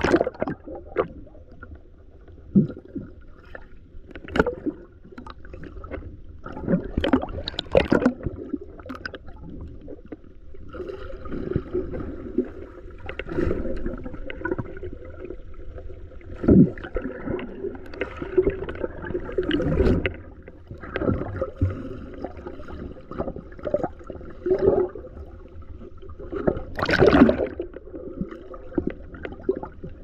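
Water sloshing and gurgling against a fishing boat's hull, with irregular knocks and thumps, the loudest near the end.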